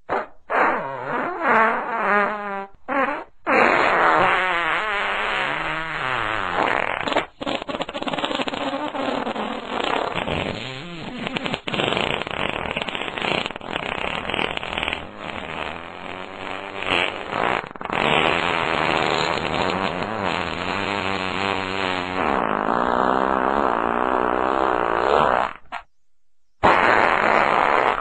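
Fart sound effects: a few short farts in the first three seconds, then one very long fart with a wavering pitch lasting about twenty seconds, and another starting near the end after a brief silence.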